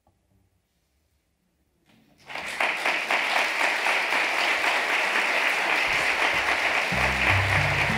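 Near silence for about two seconds, then an audience breaks into steady applause, with a brief low tone under it near the end.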